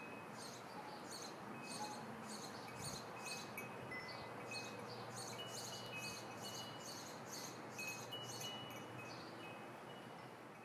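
Faint tinkling chimes, short ringing tones overlapping over a soft rhythmic shimmer, fading out near the end.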